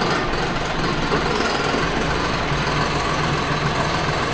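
John Deere 5075E tractor's diesel engine running steadily at a low, even pace.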